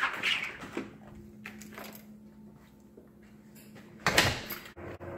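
A door being opened and shut: a clatter at the start, then a sharp, loud knock about four seconds in, with a faint steady hum between.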